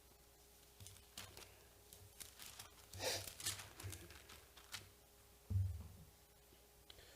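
Paper rustling and crinkling as the thin pages of a Bible are turned to find a passage, with a soft thump about five and a half seconds in.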